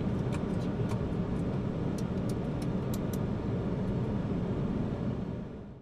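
Steady low rumble of a Boeing 747-400 heard on the flight deck, with a few light clicks about two to three seconds in, fading out near the end.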